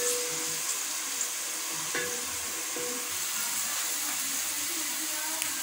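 Sliced onions sizzling steadily in hot oil in a steel pot, stirred with a wooden spoon, as they fry from light golden toward a darker brown.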